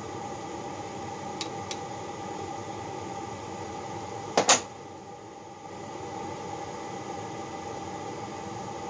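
Steady shop hum with a faint steady tone. Two light metal ticks come early, and about halfway two sharp metal clanks follow close together as the freshly poured Babbitt bearing cap and its jig are handled with pliers.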